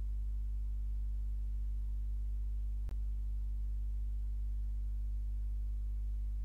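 Steady low electrical hum on the recording, with one short click about three seconds in.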